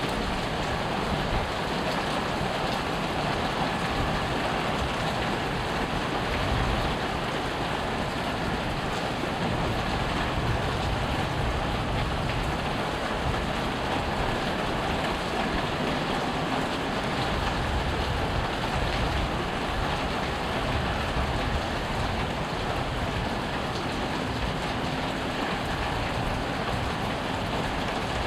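Steady heavy rain during a thunderstorm, with a low, uneven rumble underneath.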